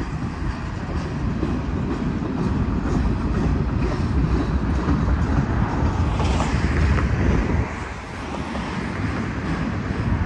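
Norfolk Southern manifest freight train's cars rolling past, a steady rumble and clatter of steel wheels on the rails, briefly quieter about eight seconds in.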